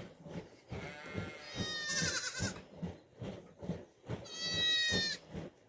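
A goat bleating, two drawn-out calls a couple of seconds apart, with scattered short knocks around them.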